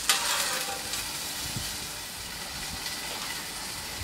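Spatchcocked coquelets sizzling steadily under a stainless steel dome on a hard-chrome gas plancha, an even hiss; a short knock right at the start.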